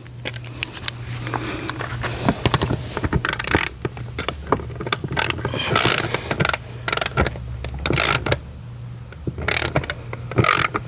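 A 14 mm-head screw being turned through a hose reel bracket into the wall, with repeated clicks and several short scrapes. It keeps turning without tightening: the pilot hole is too large for it to bite.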